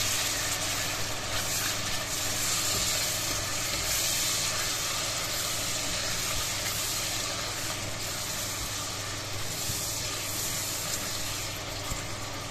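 Raw mutton pieces sizzling in hot oil with fried onions in an aluminium pressure cooker, stirred with a silicone spatula as the meat sears: a steady hissing fry that eases slightly in the second half.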